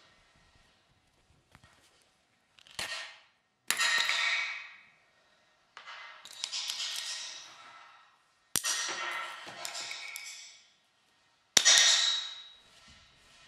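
Sound-design hits built from processed recordings of painting: about five sudden strikes, each fading out in a long hissing, ringing tail, with the loudest near the end.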